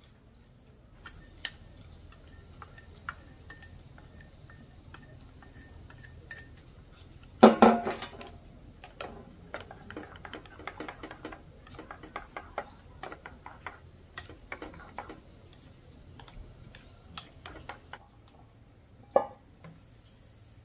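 Dishes and utensils being handled: scattered clinks and knocks, with a louder clatter about a third of the way in and a sharp knock near the end. Steady insect chirring runs underneath.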